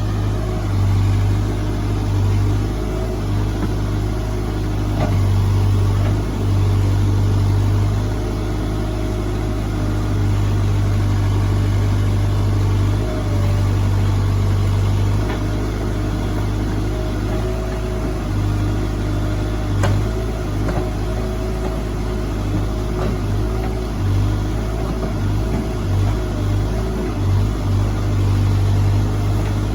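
Heavy-equipment diesel engine running steadily, its pitch rising and dipping slightly as the load changes. One sharp click about two-thirds of the way through.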